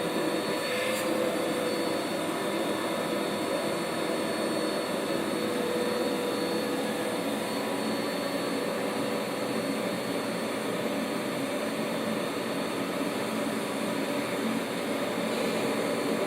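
Vacuum cleaner motor running steadily, a constant whine over a rush of air.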